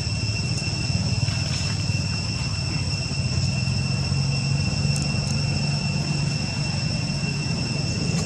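Steady outdoor background: a constant low rumble with a thin, unchanging high-pitched insect drone above it.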